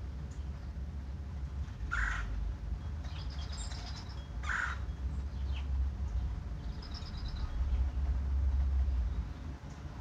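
Red-bellied woodpecker giving two short harsh calls, about two and a half seconds apart, while a smaller bird twitters high and faintly in between. A steady low rumble runs underneath.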